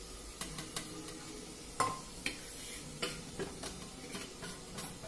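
A metal spoon stirring vegetables and spices in a frying pan, with a series of light scrapes and clinks against the pan and one louder clink about two seconds in, over the faint sizzle of the food frying.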